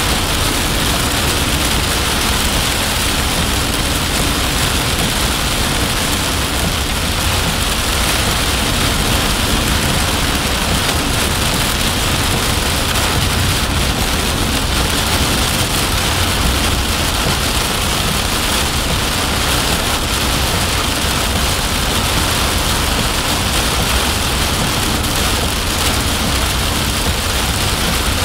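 Heavy rain hitting a moving car's roof and windshield, heard from inside the cabin over a steady low road rumble. The sound is loud and even, with no single cracks or thunderclaps.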